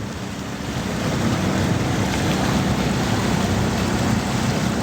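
Motorized bamboo raft running steadily along the river, its engine hum under a constant rush of water and rain noise.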